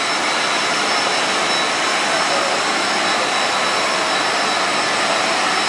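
The UV curing units of a roller-coating line running: a steady, loud rush of cooling-fan air, with a faint high steady whine above it.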